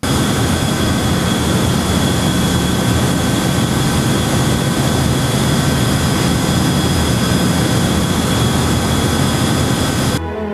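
Industrial cooling tower and its pump machinery running: a loud, steady rushing roar with a steady high whine and a low hum, which stops abruptly near the end.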